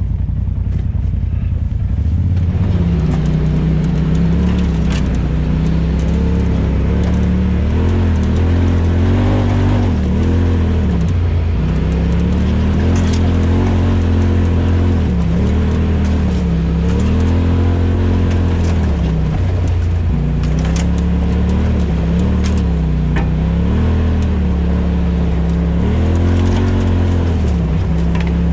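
Off-road vehicle engine running on a trail, its pitch rising and falling every couple of seconds as the throttle is worked, over a steady low drone. A few sharp clicks and knocks are mixed in.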